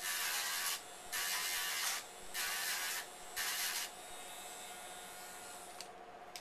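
Dremel rotary grinder grinding down the melted splice bump on a 3/16-inch nylon clothesline treadle belt: four short rasping passes in the first four seconds over the motor's steady whine, then the tool runs free without touching the rope for about two seconds.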